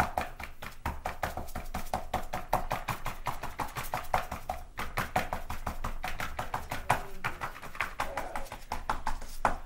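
Paintbrush dabbing quickly against paper on a wall: a fast, irregular run of soft taps that stops abruptly near the end.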